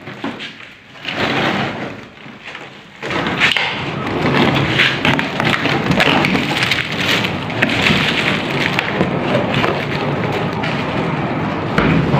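Dense crackling and rustling, with scattered thuds, as the old lining and debris inside a metal coffin are torn and pulled out by hand. It comes in patches at first, then turns into a steady crackle about three seconds in.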